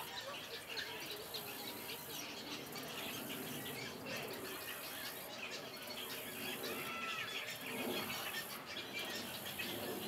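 Nesting egret colony calling: many short squawks and squeals overlapping without a break, with a few brief gliding calls about two-thirds of the way through.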